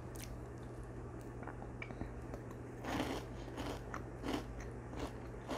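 Chewing and crunching a mouthful of Kinder Joy chocolate cream with crispy wafer balls, soft crackles throughout and louder crunches about three and four seconds in.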